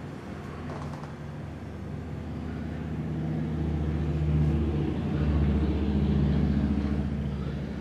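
A motor vehicle's engine rumble, swelling to its loudest about four to six seconds in and then fading as it passes by.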